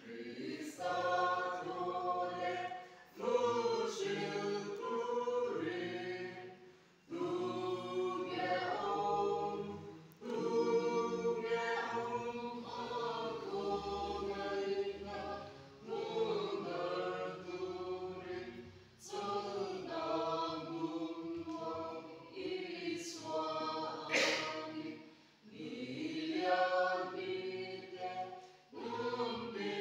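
A small mixed group of voices singing a hymn together without accompaniment, in sustained phrases of a few seconds separated by short breaths.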